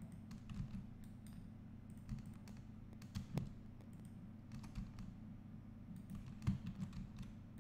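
Scattered keystrokes and mouse clicks from a computer keyboard and mouse, irregular and faint, over a steady low hum.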